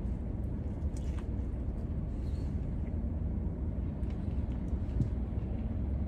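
Steady low rumble inside a parked car's cabin, with a few faint mouth clicks from chewing a burger.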